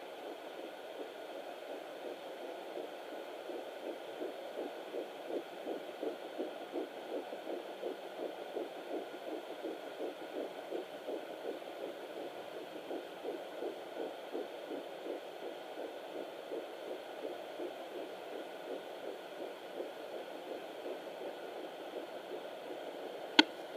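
Home fetal doppler's speaker giving a rapid pulsing fetal heartbeat, about 160 beats a minute, over a steady hiss. A single sharp click comes near the end.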